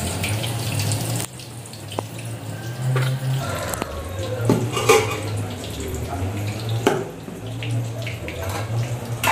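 White tofu frying in hot oil in a wok, a steady sizzle, with a few light clicks from the spatula turning the pieces.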